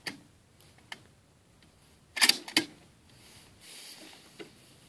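A few sharp mechanical clicks, with a louder cluster of clicks and knocks about two seconds in.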